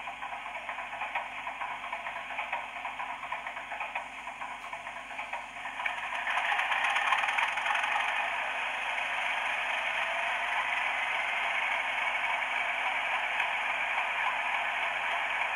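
Diesel engine sound of a Class 31 locomotive from a model locomotive's ESU DCC sound decoder, played through its small speaker. About six seconds in the engine gets louder, and a faint rising whine follows as it powers up.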